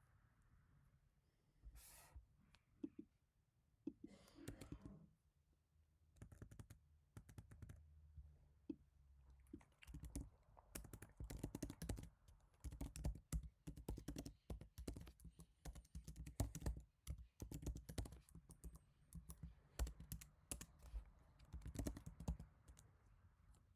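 Typing on an HHKB Professional Type-S keyboard with its silenced Topre switches: soft keystrokes, scattered at first, then quick dense runs from about ten seconds in. Two brief soft rustling sounds come in the first five seconds.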